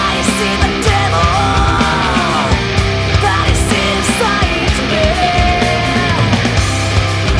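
Heavy metal band recording playing at full loudness, with steady drum hits under dense guitar, and a high melodic line that bends up and down in pitch twice.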